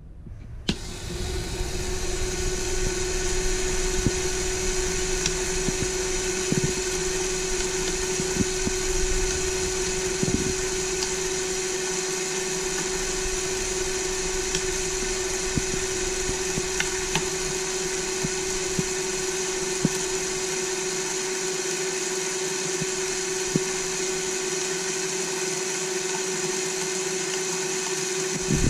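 A battery-powered Lego Technic electric motor is switched on with a click and spins up over the first second or two. It then runs steadily with a constant whine and gear noise as it turns the large gear wheel and swinging pendulum arm, with scattered light clicks from the plastic parts.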